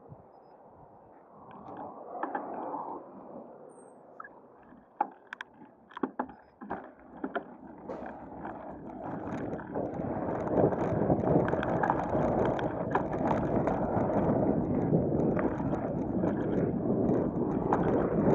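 Riding noise from a bicycle ride picked up by an action camera: wind buffeting and tyre and road rumble, quiet at first and building to a steady, louder rush from about halfway. A handful of sharp clicks and knocks come about a third of the way in.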